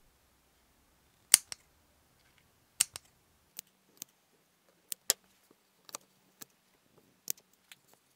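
Metal scissors snipping a small hole in a felt-covered foam pad: a dozen or so sharp, irregular clicks of the blades, the loudest about a second in.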